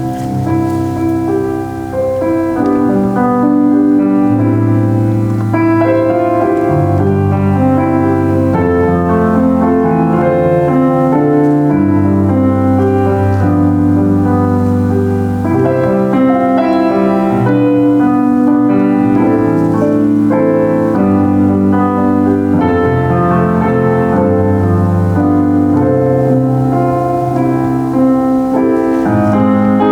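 Solo piano playing a worship song in full held chords, with low bass notes that change every second or two under the melody.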